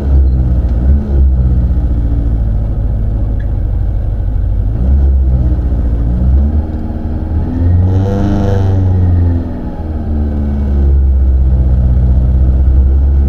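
Peugeot 106 Rallye's four-cylinder engine running at low revs, heard from inside the cabin, with one rev that rises and falls about eight seconds in.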